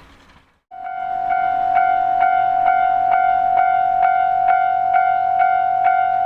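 Japanese railway level-crossing warning alarm starting just under a second in: a ringing electronic bell tone pulsing in a steady 'kan-kan' rhythm, a little over two strikes a second.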